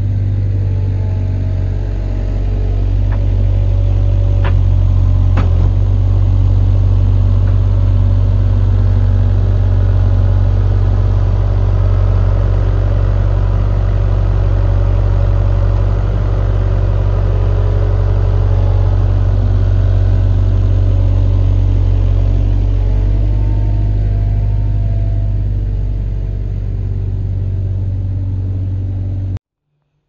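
Avant 635 compact loader's diesel engine running steadily with a deep hum, picking up slightly about two seconds in and easing a little later. The sound cuts off abruptly near the end.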